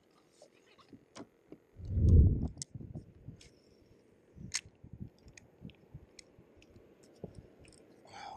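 Scattered light clicks and ticks from fishing gear being handled aboard a kayak, with one dull low thump about two seconds in.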